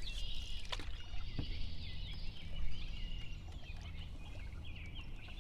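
Small birds chirping and calling continuously, over a low steady rumble, with a couple of brief knocks in the first second and a half.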